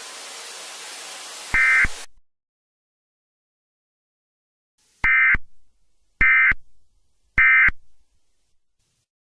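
Emergency Alert System end-of-message: three short bursts of warbling digital data tones, evenly spaced about a second apart, closing the alert. Before them, a steady hiss of static carries one short data burst and then cuts off abruptly about two seconds in.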